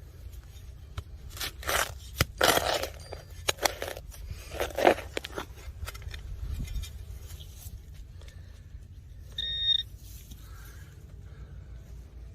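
A digging tool scraping and cutting into soil in several rough strokes, with a sharp click among them. Near the end a metal detector gives one short beep, signalling a target.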